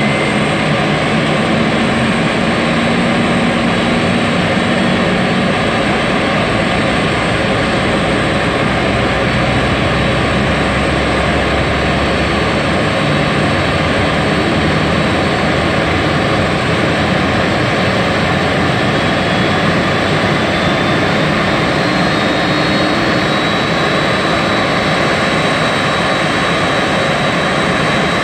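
Boeing 747 jet engines running on the ground during engine start-up: a loud, steady rushing noise with a thin high whine that rises slightly about two-thirds of the way through.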